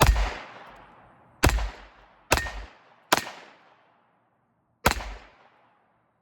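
Taurus TX22 .22 LR semi-automatic pistol firing five single shots at an uneven pace: three about a second apart, then a pause before the fifth. Each is a sharp crack with a short fading tail.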